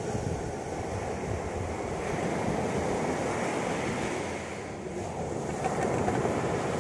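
Sea surf breaking and washing up the shore, swelling louder near the end as a wave crashes in, with wind on the microphone.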